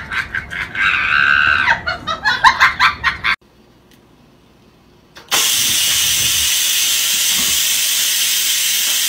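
For the first three seconds there are short, rapid vocal sounds. After a brief quiet, an electric rice cooker's steam vent starts releasing steam about five seconds in, a sudden loud, steady hiss that holds.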